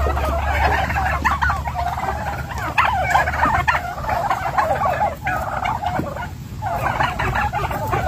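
A flock of eight-month-old grey domestic turkeys calling together, many short calls overlapping at once. The calling drops off briefly about six seconds in, then picks up again.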